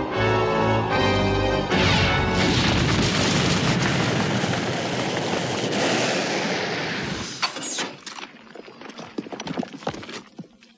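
Dramatic soundtrack music, then about two seconds in a loud explosion-like blast that runs for about five seconds. It breaks off into scattered crashes and clatters that fade out near the end.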